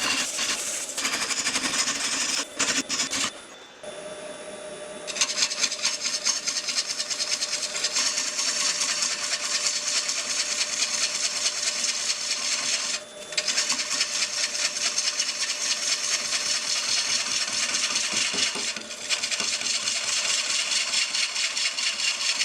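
Yew blank spinning on a wood lathe while a tool works its surface: a harsh, steady scraping hiss over a faint motor hum, stopping briefly about four seconds in, at the halfway mark and again near the end.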